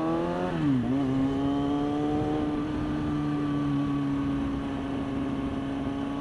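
Sport motorcycle engine heard from the rider's helmet: the revs climb, fall off about half a second in, then hold steady at a constant pitch while cruising, with wind rush over the microphone.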